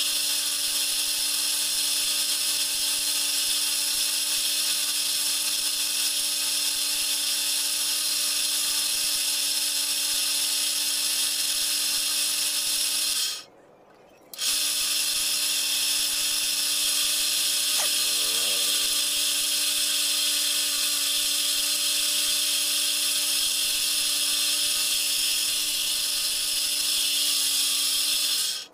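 Homemade wood lathe running steadily as it spins a wooden spindle being shaped and smoothed by hand, a steady hum under a strong hiss. It breaks off for about a second midway, and there is a brief faint squeak a few seconds later.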